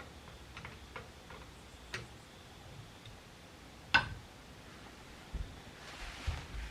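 Light clicks and taps of a screwdriver and rifle parts as the K98k's screws are snugged up, with one sharper click about four seconds in.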